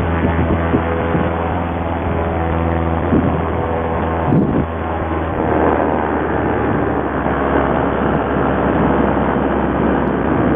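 Paramotor's Simonini two-stroke engine running under power through a forward launch and climb-out, with wind rush, heard through a helmet intercom microphone. About four seconds in, the steady low drone weakens and the wind rush grows.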